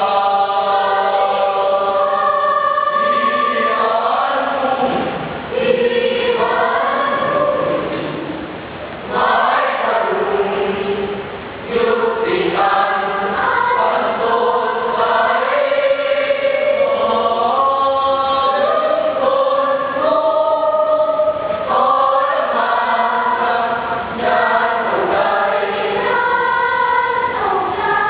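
School choir singing in several-part harmony, holding long notes with short breaks between phrases.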